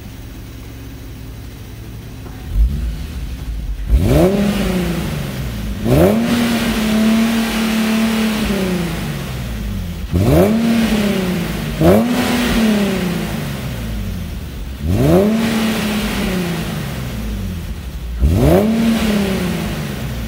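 Infiniti G37x's 3.7-litre V6 through a Tanabe axle-back exhaust, idling and then revved in six quick throttle blips. Each blip sweeps up and falls back to idle, and one is held high for about two seconds.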